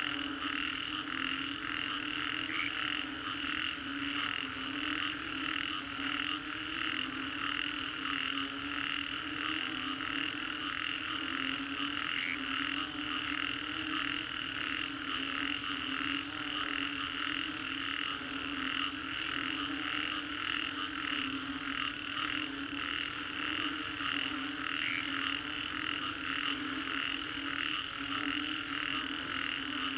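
A dense chorus of frogs calling after a storm: a fast, even pulsing of higher-pitched calls, about two a second, over a steady lower droning chorus.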